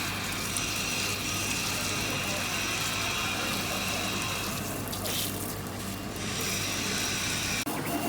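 Stone-cutting CNC router with a 5.5 kW spindle running: a steady high whine over a rushing, water-like hiss, cutting off abruptly shortly before the end.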